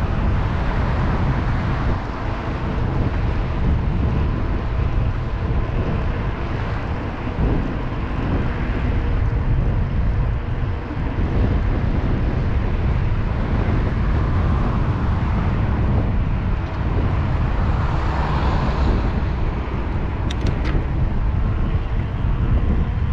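Wind rushing over a helmet or bike-mounted action camera on a moving bicycle, a steady heavy rumble with a faint steady hum underneath.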